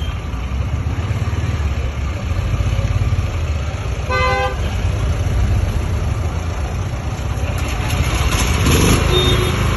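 A 15 kW portable petrol generator set running steadily with a low hum. A vehicle horn toots once, briefly, about four seconds in.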